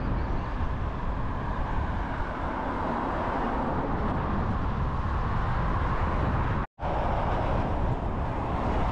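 Steady road traffic noise mixed with wind rumbling on the microphone. It drops out completely for a split second about two-thirds of the way through, then carries on the same.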